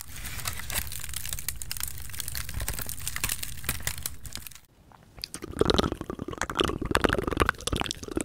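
A dense, steady crackle of fine clicks over a low rumble for the first four and a half seconds. After a brief dip it gives way to fast, aggressive ASMR mouth sounds close to the microphone: rapid tongue flutters and wet clicks, with fingers fluttering over the lips.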